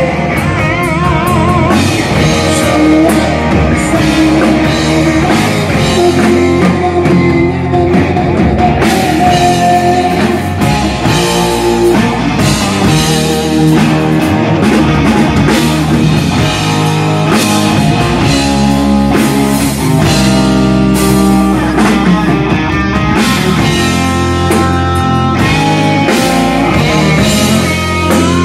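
Live rock band playing loud: two electric guitars, a bass guitar and a drum kit.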